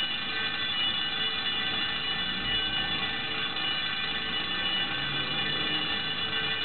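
Building fire alarm ringing steadily without a break.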